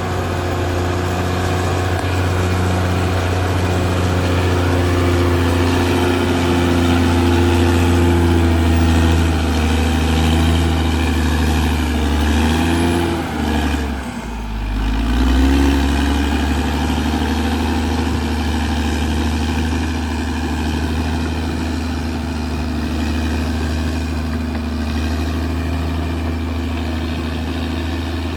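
Caterpillar D6R XL bulldozer's diesel engine running steadily; about halfway through the engine note drops sharply and climbs back up within a couple of seconds.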